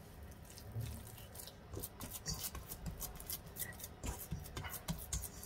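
Hand squeezing and mixing a sticky, wet dough of blended tofu and wheat gluten in a stainless steel bowl: faint, irregular squelches and soft clicks.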